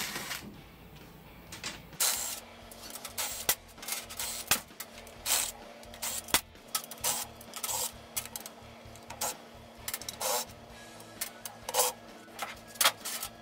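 Cordless drill-driver running in short, irregular bursts as it spins bolts out of a C4 automatic transmission case, with clinks of metal between the bursts.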